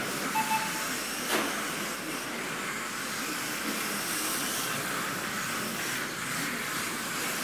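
Kyosho Mini-Z 1/28 RC cars running on a carpet track: a steady high whine and hiss of their small electric motors, gears and tyres. A short beep about half a second in and a sharp click just over a second in.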